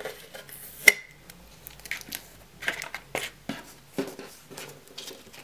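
Clear hard-plastic watercolour paint case being handled: scattered plastic clicks and knocks, the sharpest about a second in, with light crinkling in between.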